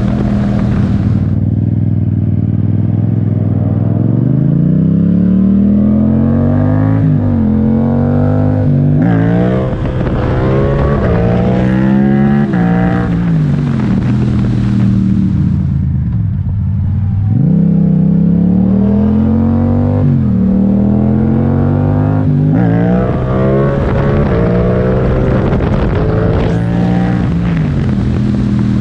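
Yamaha MT-07's parallel-twin engine running at highway speed through an Akrapovic titanium exhaust, its note rising and falling several times. A rushing wind hiss comes and goes over it.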